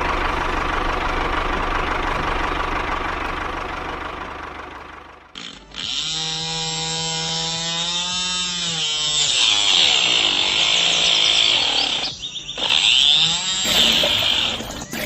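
Small motor of a homemade toy chaff cutter running with a steady whine, then cutting wood with a harsh rasping noise. Its pitch sags and recovers as the blade bites, with a break about five seconds in and short stops near the end.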